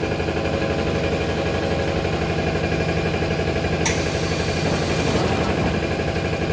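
Toilet-paper rewinding machine running with a steady mechanical hum and a fast, even pulse. About four seconds in there is a sharp click, followed by a high hiss that lasts about a second.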